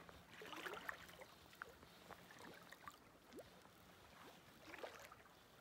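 Near silence: faint river water lapping around a wading angler, with a few scattered small splashes and clicks.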